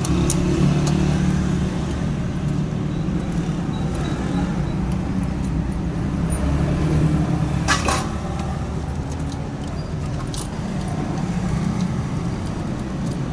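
Honda CD70's small single-cylinder engine running steadily with a metallic jangle, the noise of a worn timing chain that is due for replacement. Two sharp clicks come about eight and ten seconds in.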